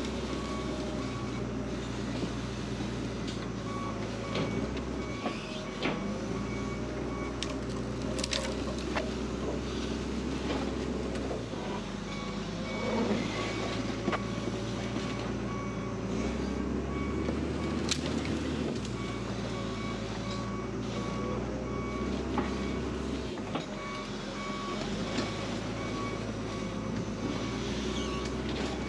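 Compact loader engine running, its low hum shifting as the throttle changes, with the reversing alarm beeping in several stretches as the machine backs up. A few sharp snaps and scrapes from branches are heard over it.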